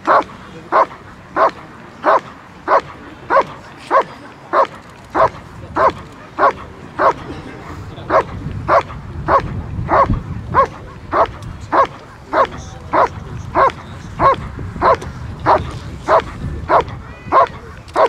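A German Shepherd gives a steady guarding bark at the helper holding the protection sleeve, as in Schutzhund protection work, about one and a half barks a second in an even, unbroken rhythm.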